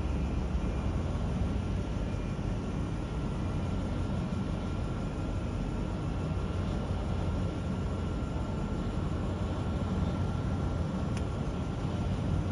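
Steady jet engine noise at an airport: a low rumble with a thin, high whine held on one pitch.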